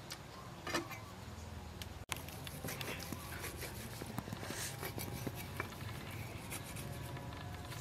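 Long kitchen knife slicing through a whole roast chicken's crisp skin and meat: a dense run of small crackles and scrapes starting about two seconds in, after a single sharp click near the start.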